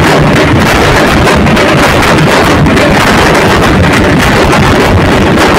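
Dhol-tasha drumming played very loud, so loud that the phone's microphone overloads and the drums come through as a steady, distorted roar.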